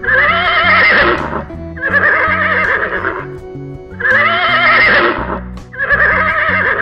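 Horse whinnying four times in a row, each neigh about a second and a half long with a quavering pitch, over background guitar music.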